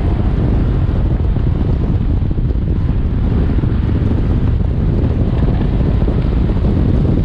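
Sports car engine under hard acceleration and cornering through an autocross run, buried in heavy wind buffeting on the microphone from the open driver's window. The low rumble stays steady and loud throughout.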